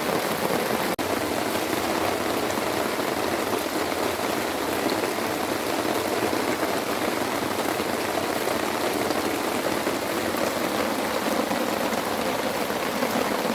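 Heavy rain falling steadily, a dense unbroken hiss of drops.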